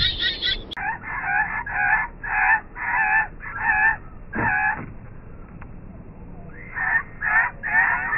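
A run of short, pitched, repeated calls, about one to one and a half a second, in two runs with a lull of about two seconds in the middle. They come in after an abrupt cut to a duller, narrower-sounding track about a second in.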